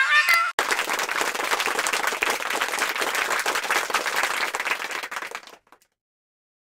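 Applause: many hands clapping in a dense, even patter for about five seconds, then stopping.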